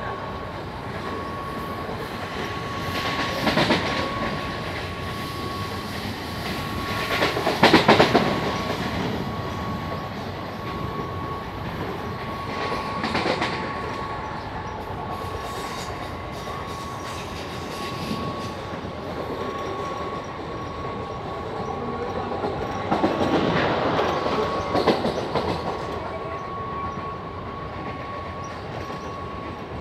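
Mumbai suburban local (electric multiple unit) train running along the track, heard from its open doorway: a continuous rushing rumble with a steady high whine underneath. Several bursts of clattering wheels over the rail joints come through it, the loudest about eight seconds in and again a little after twenty seconds.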